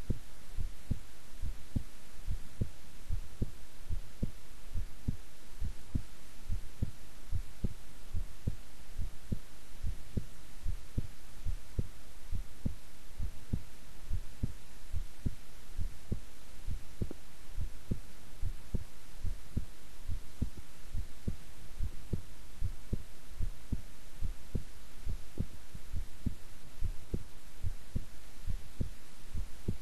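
A woman's heartbeat at rest, recorded close up: a steady, even lub-dub about once a second over a low hum.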